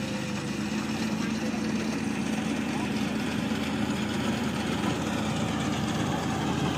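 ISEKI rice combine harvester running steadily as it cuts and threshes rice, its diesel engine giving a steady hum that grows slightly louder.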